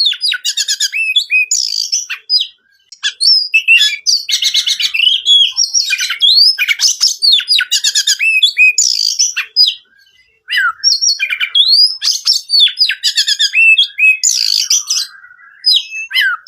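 Oriental magpie-robin singing a fast, varied song of rising whistles, rapid chips and buzzy notes, with short pauses about two and a half seconds and ten seconds in.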